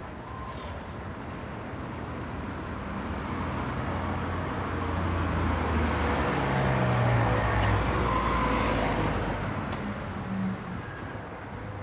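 A motor vehicle driving past on the street, its engine growing louder to a peak about seven seconds in and then fading away, the engine note dropping as it goes by.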